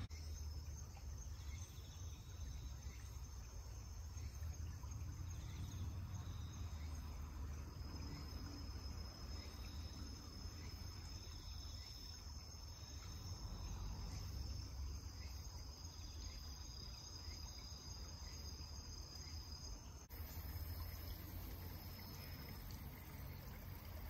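Autumn insects singing in steady, high-pitched trills over a steady low rumble.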